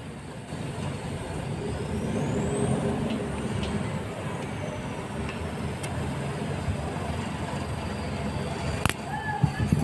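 Low, steady rumble of a vehicle engine running, swelling a little about two to three seconds in. A single sharp click comes near the end.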